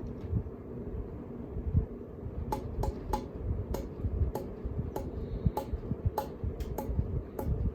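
52-inch Harbor Breeze Lakeside II ceiling fan running on high speed, its air rushing and buffeting the microphone held close to it. From about two and a half seconds in, a string of sharp clicks comes roughly two to three times a second.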